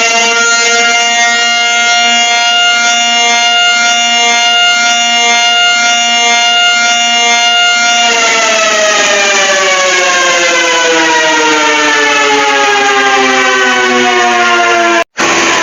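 Loud civil defense siren sounding as part of a mock Emergency Alert System alarm. Its pitch climbs for about a second, holds steady for several seconds, then slowly winds down. The sound cuts out abruptly near the end and a new tone starts right after.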